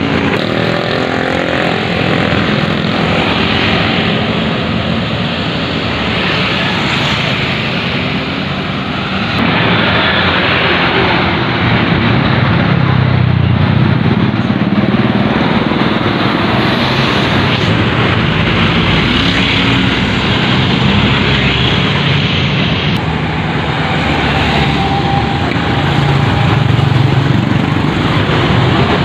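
Heavy road traffic: buses and motorbikes passing with their engines running. The noise swells about twelve seconds in and again near the end.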